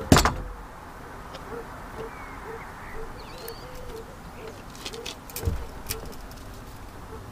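A dove cooing in short soft notes, about two a second, under climbing noises. A sharp knock comes right at the start and a dull thud about five and a half seconds in, as someone climbs out through a wooden hatch onto a corrugated roof.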